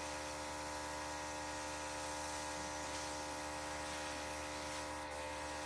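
Small airbrush compressor running with a steady electric hum, the faint hiss of the airbrush spraying paint over it. A small click about five seconds in.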